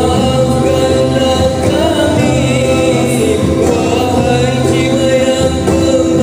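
Male voices singing a Malay devotional song asking the Prophet's forgiveness, the lead voice holding long notes with vibrato as another joins in, over a low bass accompaniment of held notes.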